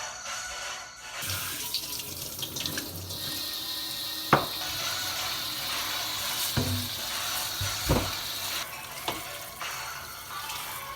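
Water running from a tap into a sink, with three sharp knocks, and the flow eases off near the end.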